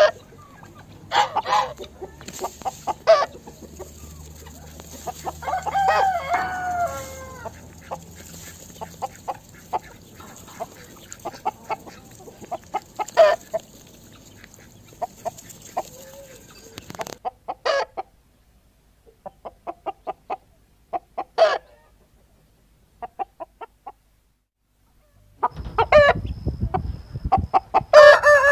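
Domestic chickens: hens clucking in short separate calls, with a longer falling call about six seconds in. Near the end a rooster begins to crow.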